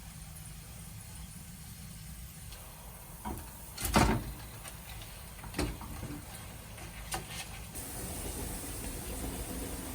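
A few sharp knocks or clinks over a steady low hum, the loudest about four seconds in and three smaller ones around it; a faint hiss comes up near the end.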